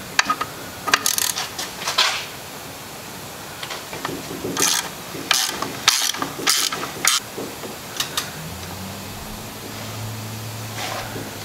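Socket ratchet working the bolts on the clutch assembly, clicking in scattered bursts with a few metallic clinks. A low steady hum comes in near the end.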